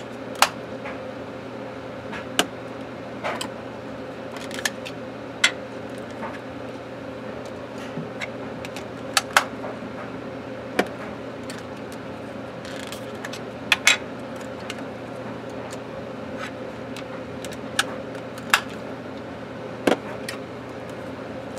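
Plastic Panasonic KX-TG6074 cordless phone handsets being handled and set down on a wooden desk: scattered sharp clicks and knocks, about a dozen, over a steady low hum.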